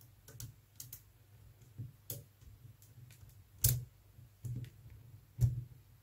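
Small magnetic balls clicking as they snap together while a strip of them is wrapped around a cylinder built of the same balls: a run of scattered light clicks, the two sharpest in the second half.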